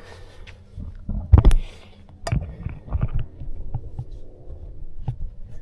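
Irregular low thumps and rumbling, the loudest about a second and a half in, with a few sharp clicks. It sounds like handling or bumping noise on a handheld camera's microphone.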